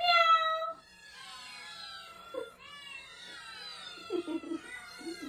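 A loud, long cat cry ends about a second in. Then many caged cats meow and yowl at once, their calls overlapping and rising and falling in pitch.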